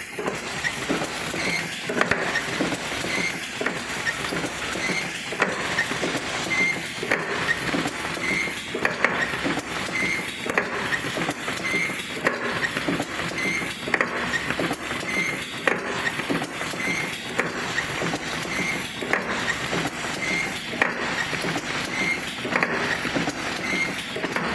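Automatic Tetra Pak cap assembly machine running: continuous rapid clicking and clattering of its pneumatic actuators and plastic cap parts, with a short high-pitched chirp recurring about once a second.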